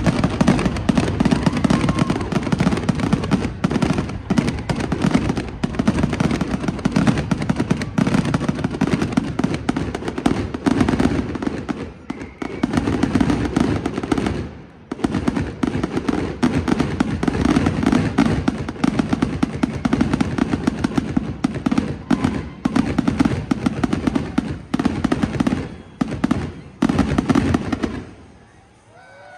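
Fireworks show: a rapid, continuous barrage of bangs and crackling, briefly thinning out about halfway through and stopping about a second before the end.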